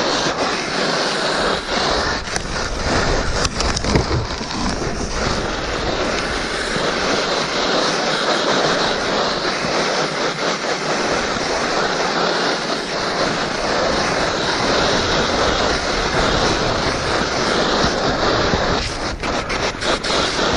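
A fallen skier's body and skis sliding fast down a steep, hard-packed slope: a continuous loud scraping hiss of snow.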